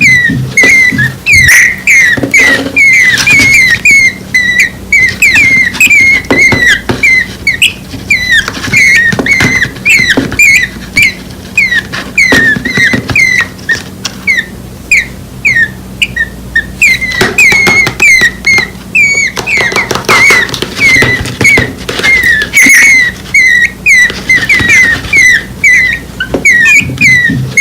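Two nestling birds under a week old cheeping continuously: short, high, hooked chirps, several a second, often overlapping. These are hungry begging calls for the parent.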